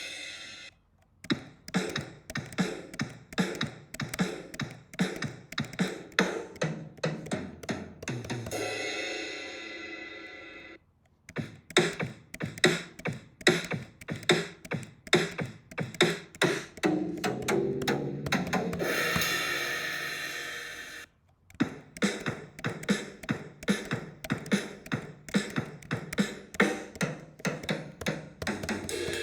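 GarageBand software drum kits playing three short beat patterns of about ten seconds each, one after another, with brief silences between them. Each groove has kick, snare and hi-hat strokes, and the first two end in a ringing cymbal wash.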